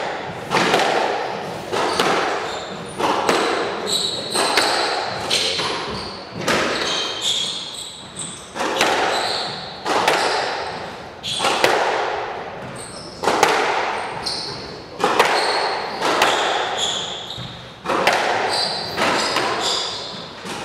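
Squash rally: the ball cracking off the racquets and the walls roughly once a second, each hit echoing around the court. Short high squeaks between the hits come from the players' shoes on the wooden court floor.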